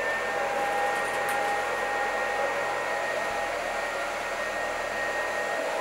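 Small high-speed cooling fans of an iPollo V1 mini crypto miner running steadily: an even airy hiss with a thin, steady whine on top.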